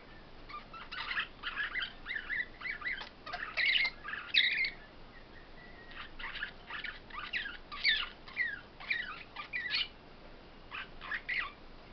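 Caged songbirds singing in phrases of quick, sliding chirps, with short pauses between the phrases.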